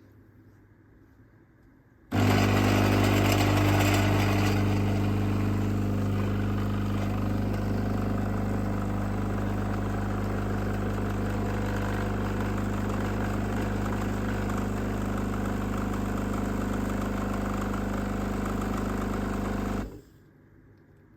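DeLonghi espresso machine's pump running steadily as it pulls a shot of espresso into the cup. The hum starts about two seconds in, is loudest for its first couple of seconds, and cuts off suddenly near the end when the shot is done.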